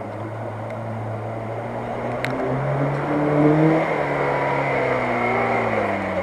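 Lada Niva engine pulling the car through shallow floodwater, with water splashing off the wheels. The revs rise about two and a half seconds in, then sink slowly.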